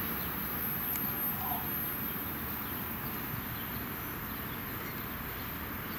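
Steady outdoor background noise with no distinct vehicle sound, and a single short bird chirp about a second and a half in.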